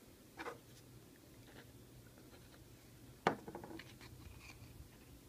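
Small handling noises on a work surface: a light tap about half a second in, a sharper knock just past three seconds, then faint scratching and ticks.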